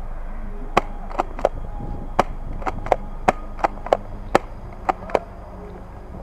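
Airsoft pistol firing about a dozen sharp single shots at an uneven pace over some four seconds.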